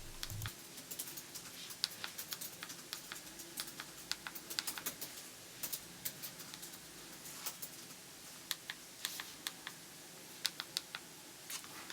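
Buttons on a flip phone's keypad clicking in quick, irregular runs as someone types a text message.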